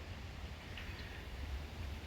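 Faint outdoor ambience with a steady low rumble and a faint high chirp about a second in.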